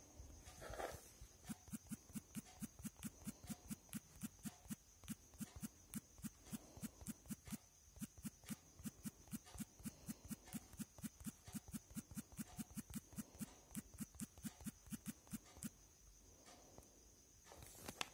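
Faint, even clicking at about four clicks a second, which stops near the end.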